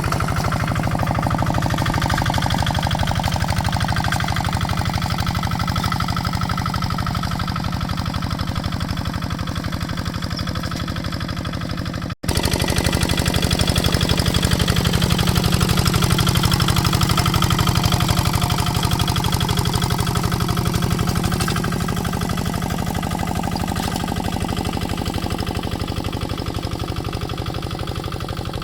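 Kubota RD65 DI single-cylinder diesel engine on a hand tractor running steadily with a rapid even chug. The sound drops out for an instant about twelve seconds in, then carries on.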